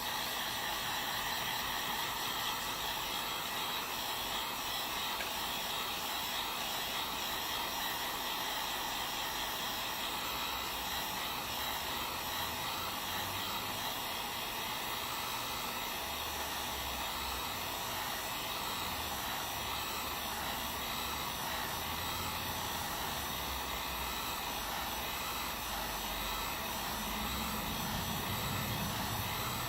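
Hot-air blower running steadily, heating the edge of a phone's screen to soften the adhesive that holds it.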